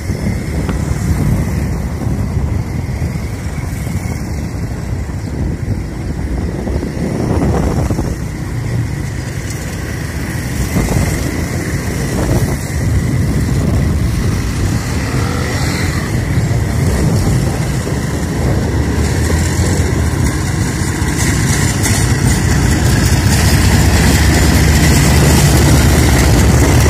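GEU-40 diesel-electric locomotive running under power as it hauls a departing express train, with a steady low rumble. The sound grows louder over the last few seconds as the locomotive comes close.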